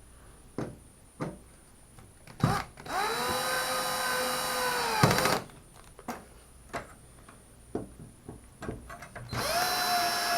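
Screw-driving drill-driver spinning up, running for about two seconds and winding down while tightening a screw in a metal shelf track, then starting a second run near the end. Light clicks and taps of handling come between the runs.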